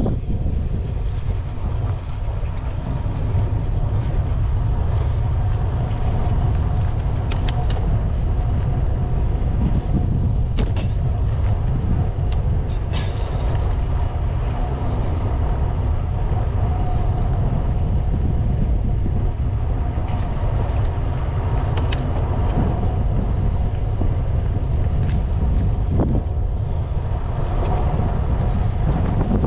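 Steady low rumble of wind buffeting the microphone and tyre noise from a bicycle being ridden, with a few sharp clicks scattered through it.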